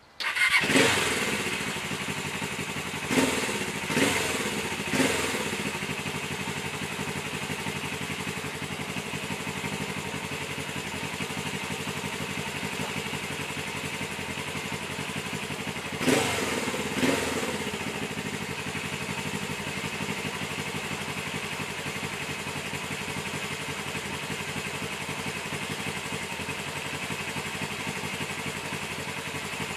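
A 1991 Suzuki GS400E's 400 cc air-cooled four-stroke parallel twin, fitted with a one-off stainless steel exhaust, fires up right at the start and settles into a steady idle as it warms up from cold. Three short throttle blips come a few seconds in, and two more about midway.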